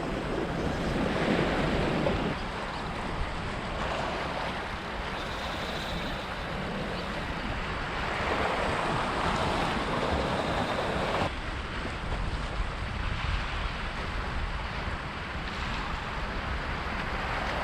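Surf washing against the jetty rocks with wind buffeting the microphone, a steady rushing noise that shifts abruptly about two seconds in and again near eleven seconds.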